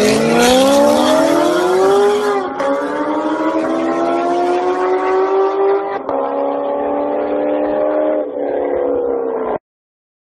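Sports car accelerating hard from a drag-strip launch, its engine revving up with a rising pitch and dropping at gear changes about 2.5 s and 6 s in. It grows a little fainter as the car pulls away, and the sound cuts off abruptly near the end.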